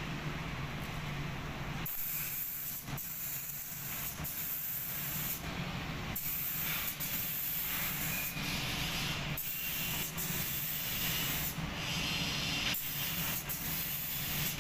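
Paint spray gun hissing in repeated spells of one to two seconds, cutting off briefly between them, over a steady low hum.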